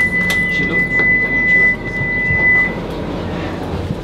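Tram door warning tone: one steady high beep held for about three seconds, then it stops, over the low running hum of the tram car.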